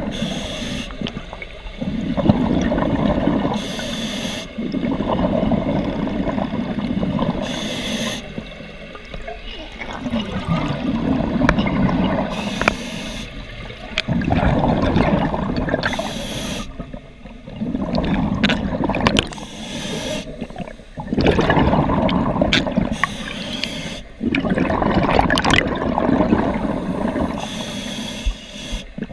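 Scuba diver breathing underwater through a regulator: a short hiss on each inhale, then a longer burble of exhaled bubbles, repeating about every four seconds.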